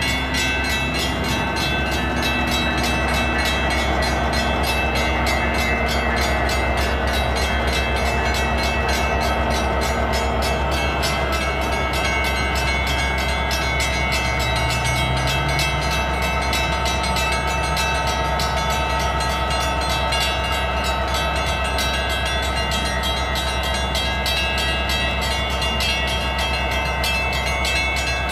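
Metra EMD SD70MACH diesel locomotive running steadily with a low engine drone, with a steady high ringing over it from grade-crossing bells.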